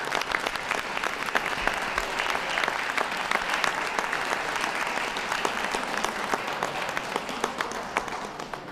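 Audience applauding, a dense steady patter of many hands clapping that thins out near the end.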